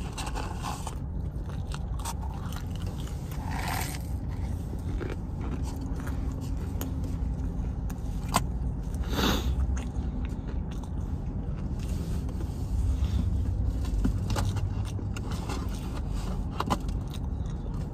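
A person chewing and biting into crispy breaded spicy chicken fries, with scattered crunches and small scrapes, over a steady low rumble in a car's cabin.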